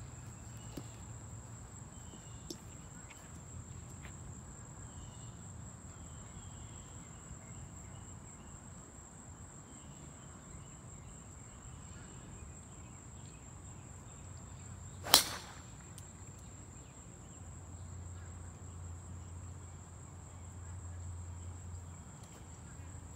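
A driver striking a golf ball off the tee: one sharp crack about fifteen seconds in. A steady high-pitched insect chirring runs underneath.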